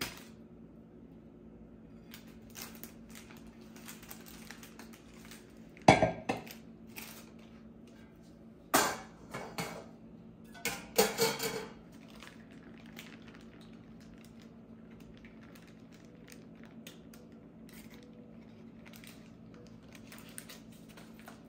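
A cake stand and baking pan being handled on a stone kitchen countertop: three loud clattering knocks, about six, nine and eleven seconds in, with softer knocks and rustles of paper between.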